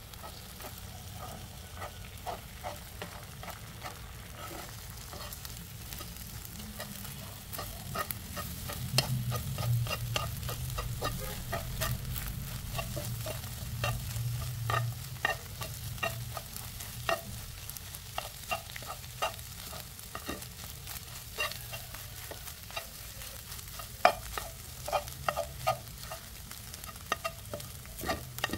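Eggs sizzling as they fry in a nonstick pan while a spoon stirs and chops them into scrambled pieces, with frequent scrapes and taps of the spoon against the pan that come thicker in the last few seconds.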